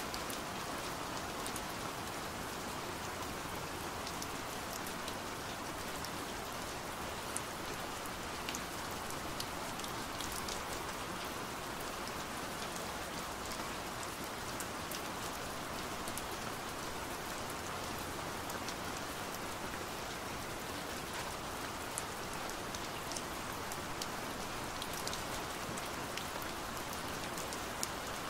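Steady rain on a window pane, with scattered sharp ticks of single drops striking the glass.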